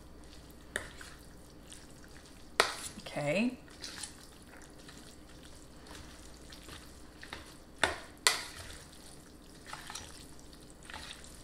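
Cooked spaghetti and meat sauce being stirred and tossed in a large plastic mixing bowl, giving soft wet stirring sounds. A few sharp taps of the utensil on the bowl break through, two of them close together about eight seconds in.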